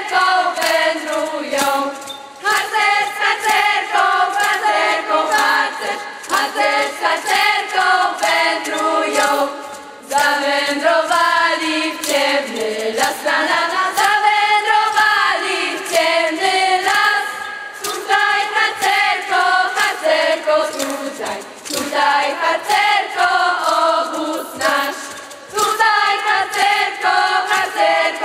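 Vocal ensemble singing a Polish scouting song together over a steady beat.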